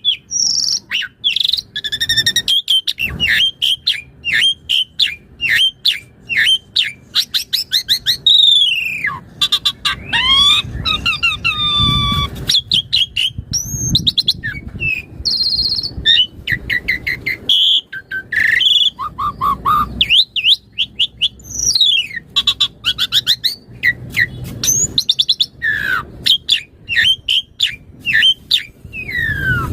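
Asian pied starling (jalak suren) singing energetically without pause, pouring out a long, varied run of rapid clicks, chirps, whistles and rising and falling notes from its repertoire of learned songs.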